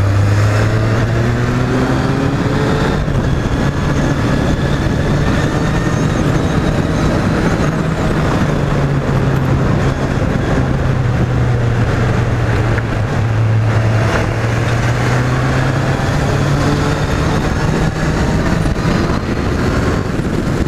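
Kawasaki Z800's inline-four engine on its stock exhaust, running under way. Its low note rises and falls gently as the speed changes, under a heavy rush of wind and road noise.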